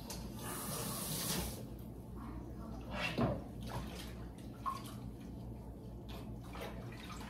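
Kitchen counter handling sounds: a brief hiss for about the first second and a half, then a few light knocks and clatters, over a steady low hum.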